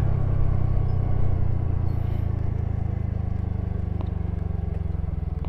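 TVS Ntorq 125 scooter's single-cylinder engine running as the scooter rolls off the throttle and slows down, its sound slowly getting quieter and beginning to pulse near the end.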